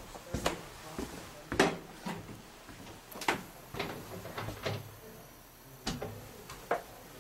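Footsteps on old wooden floorboards or stairs: a string of short, sharp knocks and thumps at uneven spacing, about one or two a second.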